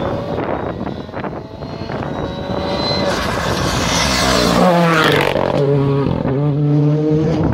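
Rally car at full throttle coming up the road and passing close by. Its engine grows louder to a peak about four to five seconds in, drops in pitch as it goes past, then holds a steady note as it drives away, broken briefly a couple of times.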